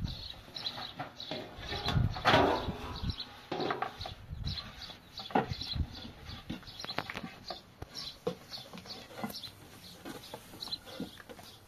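Small birds chirping repeatedly, with scattered knocks and a louder scraping rustle about two seconds in.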